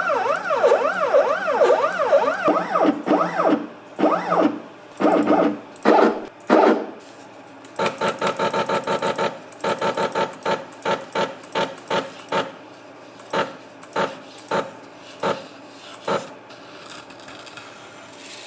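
Stepper motors of a DIY CNC router jogging the axes. For the first few seconds there is a whine that rises and falls again and again. From about eight seconds in come short tonal bursts, two or three a second and then sparser, as the bit is stepped down in small moves onto a sheet of paper to set the zero point.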